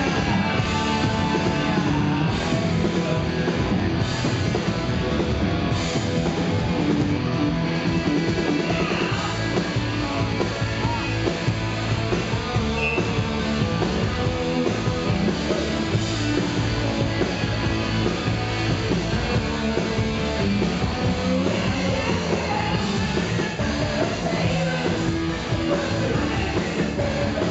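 Glam-punk rock band playing live: electric guitar, bass guitar and drum kit at a steady full level, with a male singer singing over them.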